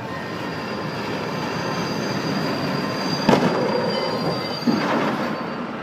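Czech Railways diesel locomotive approaching on the rails, getting louder, with a high squeal over the rumble. About three seconds in it strikes a coach bus with a loud crash, followed by a second crunch about a second and a half later.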